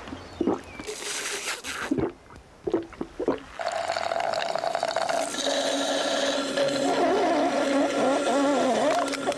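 Sucking and slurping through a straw from a bottle: a few short gulping slurps, then a steady drawn-out suck with a squeal that wavers in pitch toward the end.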